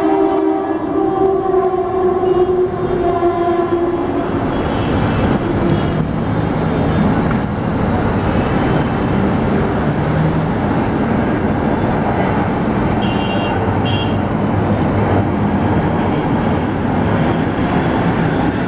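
Boeing 747 freighter's four jet engines on low landing approach, passing overhead as loud, steady jet noise. A pitched drone with several overtones rides on top at the start and fades out about four seconds in.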